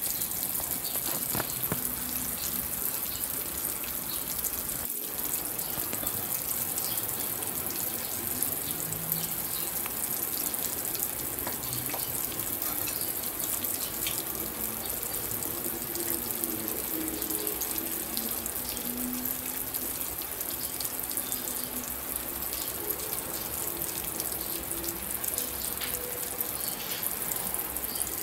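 Spice-coated chicken pieces frying in hot oil in a pan: a steady sizzle with fine crackling throughout.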